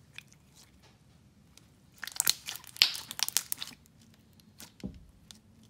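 Clear slime being stretched and worked by hand, giving sticky crackles and little pops: a few scattered clicks, then a dense run of crackling about two seconds in, and a few more pops near the end.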